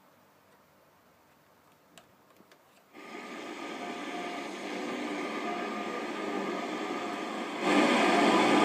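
Vintage JVC Nivico radio-cassette recorder switched on: a few small switch clicks about two seconds in, then a sudden steady hiss of radio static about three seconds in that slowly grows, jumping louder near the end as the volume is turned up.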